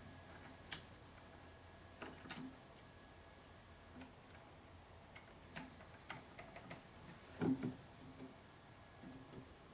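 Faint, irregular light clicks and taps from the wooden parts of a Steinway model B grand piano action and a small spring tool, as a repetition lever spring judged too weak is worked out and hammers are lifted. A slightly louder knock comes about seven and a half seconds in.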